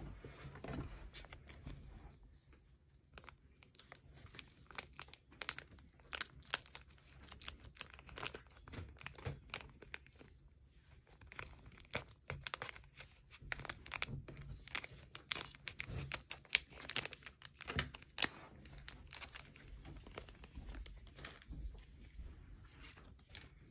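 Foil Pokémon booster-pack wrapper crinkling and crackling as it is cut open with scissors and handled, in many short crackles with a few brief pauses.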